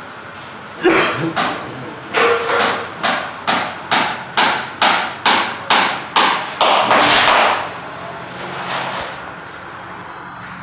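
Hammer striking repeatedly while a spotlight hole is being knocked out: one knock about a second in, then about a dozen quick, evenly spaced blows, roughly two and a half a second, ending in a longer rough noise.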